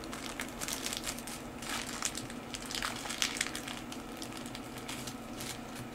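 Small clear plastic zip-lock bag crinkling as it is handled and pressed flat, with irregular short crackles throughout.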